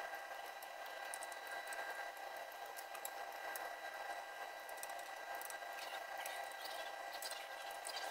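Faint, scattered ticks and taps of a small torque wrench and socket being worked from bolt to bolt on a transmission oil pan, over a steady hiss with faint high whining tones. The ticks come more often in the second half.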